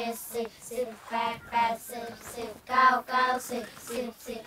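A class of children chanting in unison in a sing-song rhythm, a rote classroom recitation of the multiplication tables.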